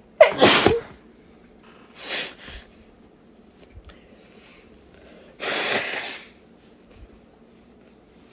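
A woman sneezing twice, about five seconds apart, the first sneeze sudden and the loudest, with a shorter, quieter breathy sound between them. These are stuffy, congested sneezes, perhaps from a cold.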